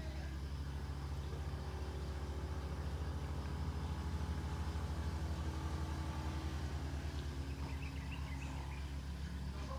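Steady low mechanical drone with a fast, even pulse, with a few faint bird chirps about eight seconds in.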